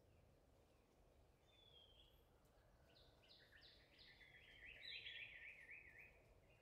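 A bird singing faintly over a quiet background: from about three seconds in, a few short falling notes run into a quick warbling trill that stops shortly before the end.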